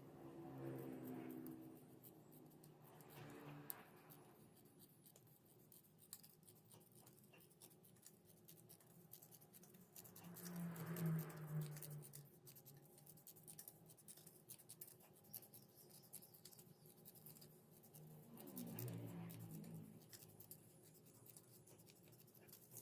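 Near silence, with faint scratching, rustling and snipping as a thin plastic film sheet is handled and cut with scissors. A few faint pitched sounds from farther off swell up briefly, most clearly about ten and nineteen seconds in.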